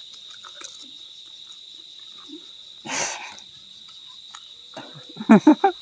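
Crickets chirping in a steady, continuous high-pitched chorus. A short hissing burst comes about halfway through, and a voice starts near the end.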